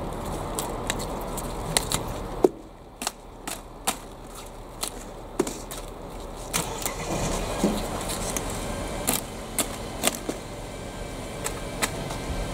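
Cauliflower leaf stalks snapping and crackling as the outer leaves are broken off by hand: a run of sharp, irregular clicks over steady low background noise.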